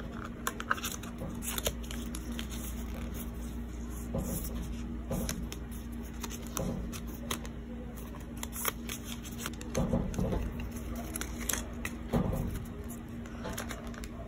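Close handling of packaging: scattered rustles, small clicks and taps of cardboard and plastic, over a low steady room hum.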